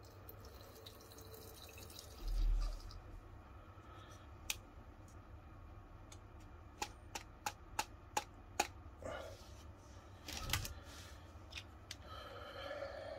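Faint handling sounds of a plastic syringe and small bottle while alcohol is squirted into a soda-can alcohol stove: a low bump a couple of seconds in, a quick run of sharp clicks in the middle, and a knock a little later.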